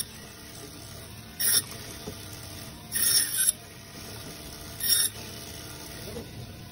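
Band saw cutting frozen fish: the blade rasps briefly through a piece four times, about every one and a half seconds, with the saw's steady running hum between cuts.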